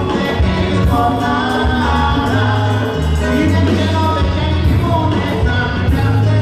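Live Latin band playing loudly through a PA, with a steady heavy bass line under guitars, keyboards and percussion, and a male lead singer singing over it.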